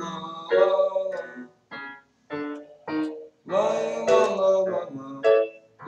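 A boy's voice singing the wordless 'lai-la-la-la-la' refrain to piano accompaniment, in short phrases with brief gaps between them.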